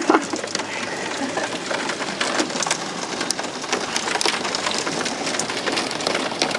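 Hail and heavy rain pelting down: a steady dense patter with many sharp ticks of hailstones striking surfaces.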